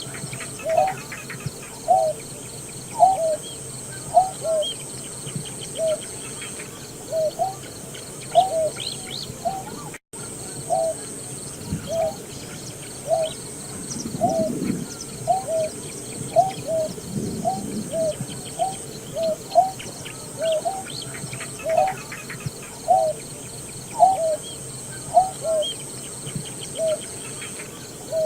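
Greater painted-snipe calling: a long series of short, low hooting notes, often in pairs, about one or two a second. A faint steady high whine runs underneath, and the sound drops out for an instant about a third of the way through.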